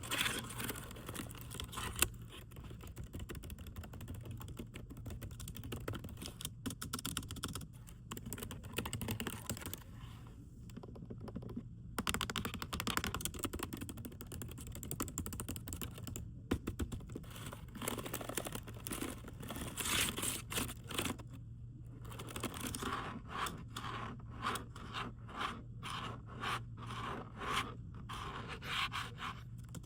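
Typing on a computer keyboard: a steady stream of key clicks in irregular flurries, thinning out briefly about ten seconds in.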